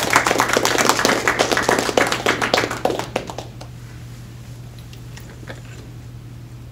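Audience clapping at the end of a talk, a dense patter of hand claps that dies away about three and a half seconds in, leaving a steady low hum.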